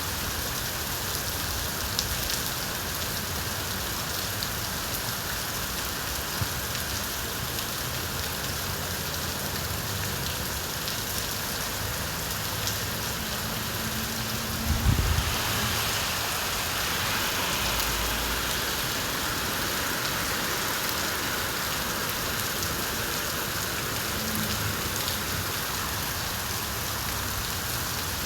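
Steady rain falling, with scattered individual drops ticking. About halfway through there is a short low thump, followed by a few seconds of louder hiss.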